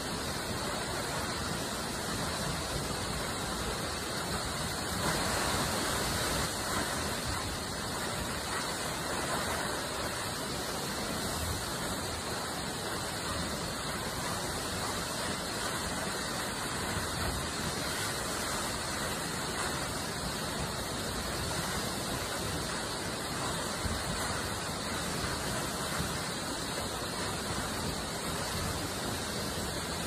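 Steady rushing of a waterfall's falling water, an even hiss with no breaks, briefly a little louder around five seconds in.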